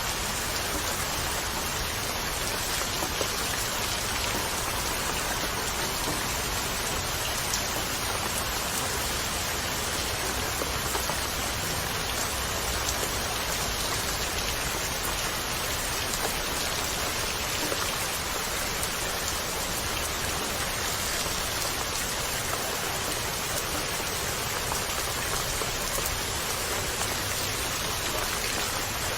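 Steady rain falling on a surface: an even, unbroken hiss with no thunder.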